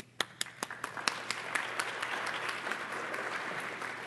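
Audience applauding: a few separate claps at first, quickly filling out into steady applause that eases off near the end.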